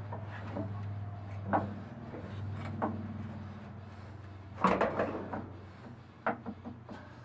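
Knocks and clunks of a heavy cast-iron lathe tailstock being handled and set down on a workbench, the loudest cluster about two-thirds of the way through, over a steady low hum.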